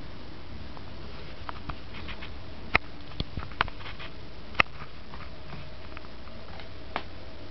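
Anatolian shepherd dog's claws clicking on a hardwood floor as it steps slowly and carefully: scattered single taps, most of them in the middle, the sharpest at about three and a half seconds and one more near the end.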